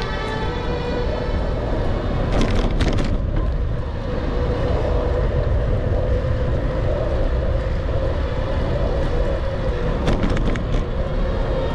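Riding noise from a moving bicycle: wind rushing over the microphone and a steady hum from the tyres on asphalt. Brief rattling clicks come twice, a couple of seconds in and again near the end.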